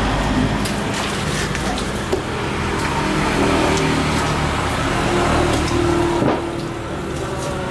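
A motor engine running steadily close by, with a couple of short knocks from knife work on a wooden chopping block.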